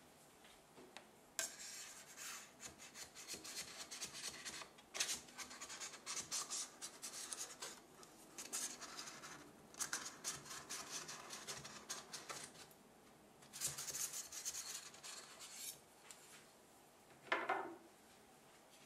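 A knife blade scraping around the inside of a stainless steel adjustable cake ring, rubbing against the metal in a run of scraping strokes with short pauses, to loosen the set apple filling from the ring.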